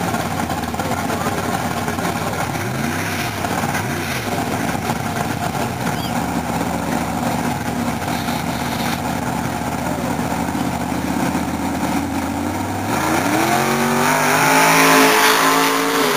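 Drag-race doorslammer engines running loudly at the starting line, with two quick revs about three seconds in. Near the end the cars launch and accelerate hard down the track, the engine pitch climbing steeply and getting louder.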